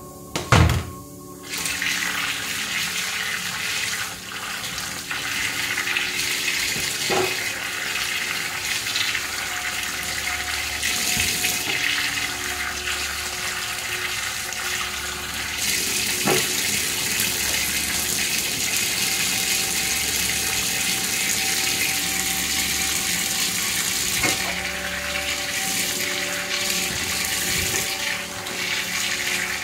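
Tap water running steadily into a stainless steel sink, splashing over hands and peeled green bananas being rinsed under it. A single knock sounds about half a second in.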